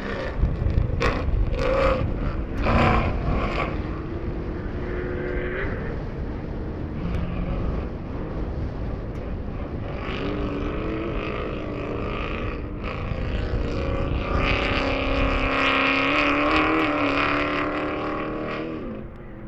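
Off-road race car engine running hard, its pitch climbing and dropping with throttle and gear changes. A few sharp knocks come in the first few seconds, and the engine eases off near the end.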